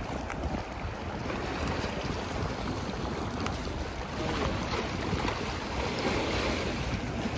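Wind noise on the microphone over the steady rush of fast, churning river water in a dam's tailwater.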